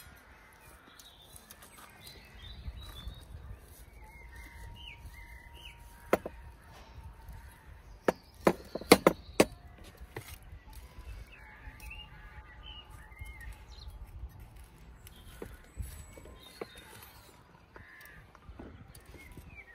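Birds chirping now and then while a steak is carved with a knife and metal tongs on a wooden cutting board; a single sharp knock, then a quick cluster of louder clicks and knocks a little before halfway through.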